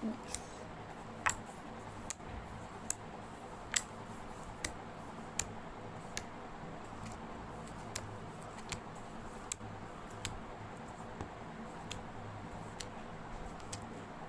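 Homemade glue-and-activator slime being kneaded and squeezed by hand, giving sharp clicks and pops about once a second as trapped air bursts.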